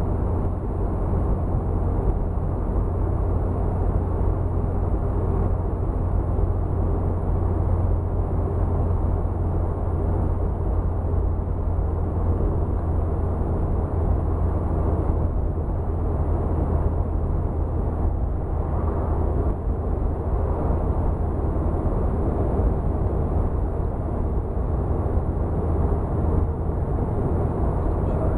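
Interior drone of a Morris Minor 1000 being driven: its four-cylinder engine and road noise make a steady low hum inside the cabin, unchanging throughout.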